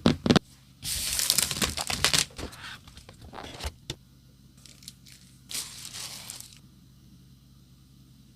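Packaging being torn and crinkled open: a long stretch of tearing and rustling about a second in, smaller crackles after it, and another rustling burst near six seconds.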